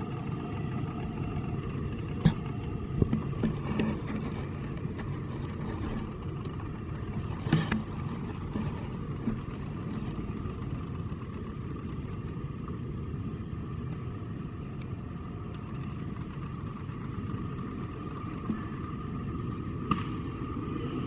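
A steady low mechanical drone, like a motor running, with a few sharp clicks or knocks, the loudest about 2, 3 and 7.5 seconds in and another near the end.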